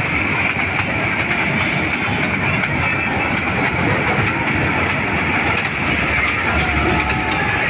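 Small ride-on amusement toy train running on its circular rail track: a steady running noise with a high hum and faint scattered clicks from the wheels on the rails.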